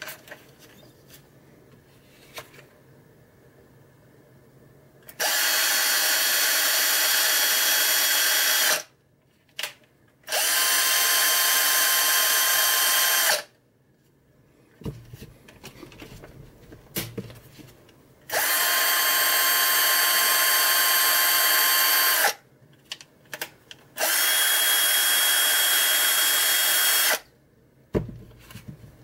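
TOPELEK electric drill motor run four times, each run about three to four seconds of steady whine, with small handling clicks in the pauses between.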